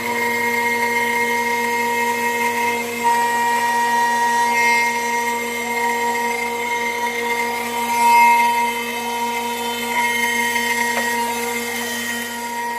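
CNC router spindle running at high speed, a steady whine, while its cutter mills aluminium; the tone and loudness waver a little as the cut goes on, swelling briefly about eight seconds in.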